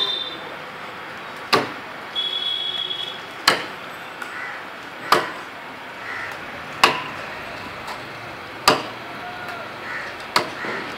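Hand chopping strokes biting into a coconut palm trunk, about seven sharp blows, one every second and a half to two seconds.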